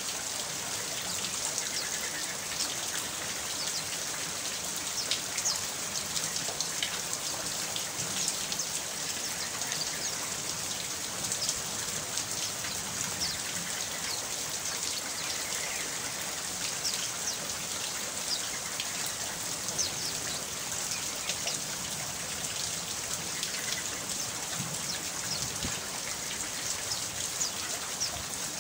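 Steady rain, with many separate drops pattering on a surface.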